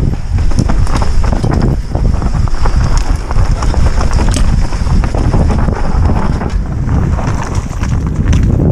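Orbea Rallon R5 full-suspension mountain bike descending a dirt and rock forest trail at speed: heavy wind rumble on the helmet microphone over tyres on loose ground, with frequent rattles and knocks from the bike over rough terrain.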